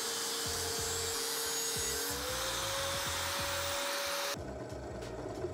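Angle grinder cutting a metal plate: a steady motor whine under a harsh grinding hiss, rising slightly in pitch about halfway through. It cuts off abruptly a little over four seconds in.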